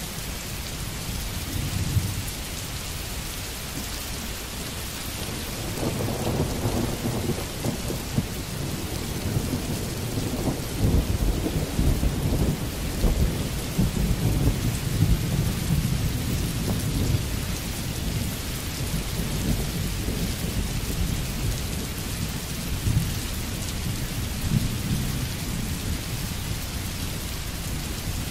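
Steady rain falling, with a long low roll of thunder that builds about six seconds in, is heaviest around the middle and slowly fades.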